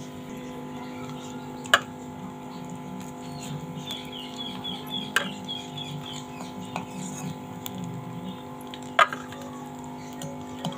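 Utensil clicks of cabbage Manchurian balls being lifted out of frying oil with a spoon and set in a bowl: three sharp clicks, about two, five and nine seconds in. A steady low hum runs underneath, and a run of faint high chirps comes around the middle.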